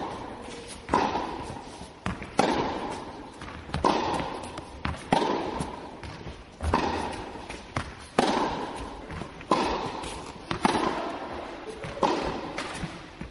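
Tennis ball struck by rackets in a steady rally: a sharp pop about every second and a half, each dying away in an echo, some with a fainter knock of the ball bouncing just before.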